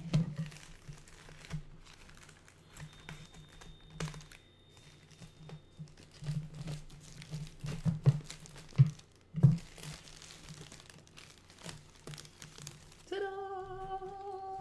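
Plastic bubble-wrap sleeve crinkling and crackling as a potted plant is worked out of it, with a few sharper crackles about 8 to 9.5 seconds in. Near the end a woman starts humming a tune.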